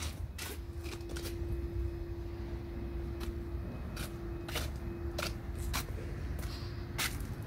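Volkswagen Amarok's 2.0 TDI four-cylinder turbodiesel idling, a low steady rumble with a steady hum, under scattered sharp clicks close to the microphone.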